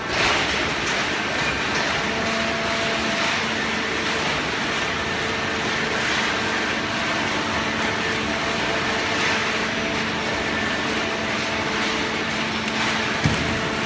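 Hydraulic waste paper baler running: a steady machine hum with a hiss over it, and a single sharp knock near the end.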